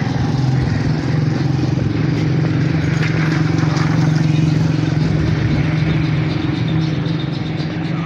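A motor running steadily, a low even hum that holds the same pitch throughout.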